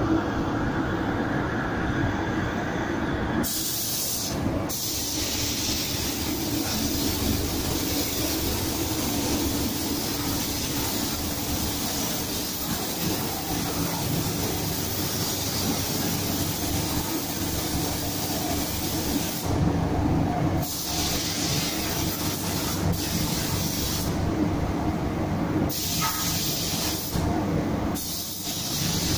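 DeVilbiss GTi Pro Lite spray gun hissing as it sprays clear coat, starting a few seconds in and cutting out briefly several times as the trigger is released, over the steady low rumble of the spray booth.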